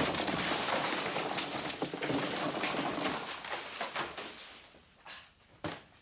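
Dense clatter and rustle of debris falling through a broken ceiling, fading away over about five seconds, followed by a few separate knocks.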